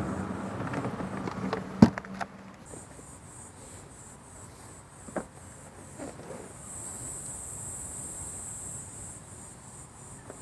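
A sharp knock about two seconds in, then faint background insects singing high and steady for a couple of seconds past the middle, with a few soft knocks.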